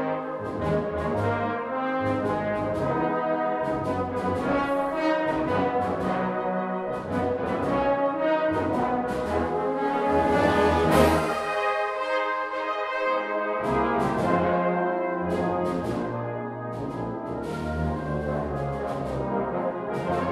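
Brass band playing a lively passage, with sharp percussion strokes and a crash just past the middle. The bass drops out for about two seconds after the crash and then comes back in.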